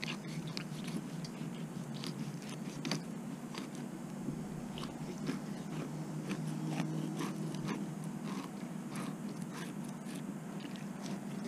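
Fillet knife cutting a mullet along its backbone, giving a run of small crunching clicks and scrapes as the blade works through the bones, over a steady low hum.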